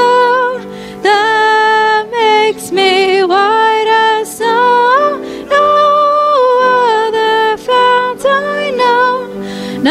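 Hymn singing: a slow melody of long held notes with short breaks between lines, one voice standing out over a steady sustained accompaniment.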